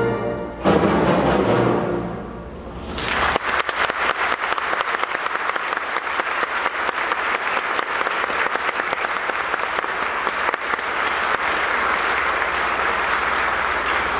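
A symphony orchestra ends the piece on a last loud chord that dies away. About three seconds in, the audience breaks into steady applause.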